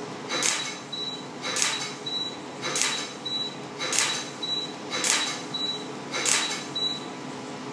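Candela V-beam pulsed dye laser firing six pulses about a second apart, each a short hissing snap followed by a brief high beep.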